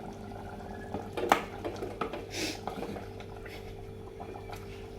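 Spoon stirring chicken and masala in a clay pot, scraping and knocking against the pot, with a sharp clack a little over a second in.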